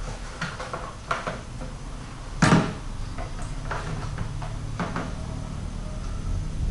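Clunks and knocks of parts and tools being handled, with one loud knock about two and a half seconds in, over a low steady hum.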